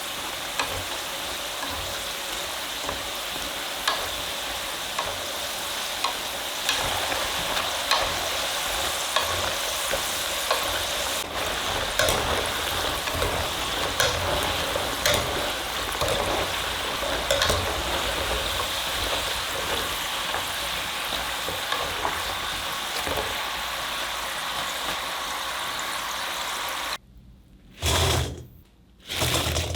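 Potato fries deep-frying in hot cooking oil: a steady crackling sizzle with scattered sharp ticks. The sizzle cuts off about 27 seconds in, and two short, louder sounds follow.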